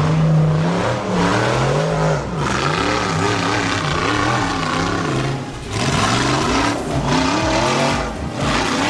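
Rock bouncer buggy's engine revving hard again and again as it climbs a steep dirt bank, its pitch swinging up and down every half second or so.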